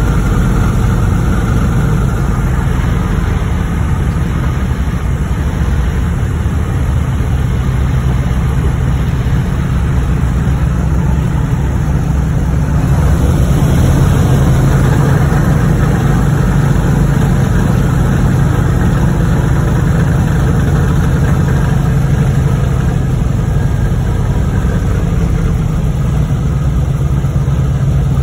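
Radial piston engine of a propeller airplane running steadily at low power while the plane rolls on the ground, a loud deep drone heard from inside the cabin, swelling slightly about halfway through.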